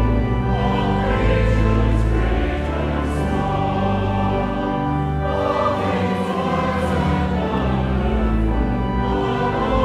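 Choir singing a slow hymn with instrumental accompaniment and sustained bass notes.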